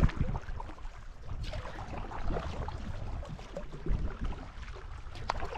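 Water lapping and splashing against a kayak's hull as it is paddled, with wind buffeting the microphone in low rumbles, strongest at the start and about four seconds in.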